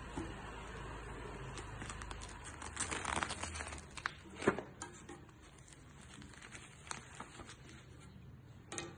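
Handling noise: rustling with a few scattered sharp clicks, the loudest about halfway through.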